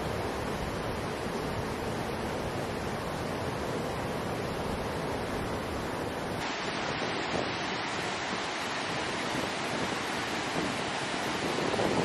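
Steady rushing of a cascading mountain stream's white water, an even noise with no let-up. A little over six seconds in it abruptly turns slightly duller.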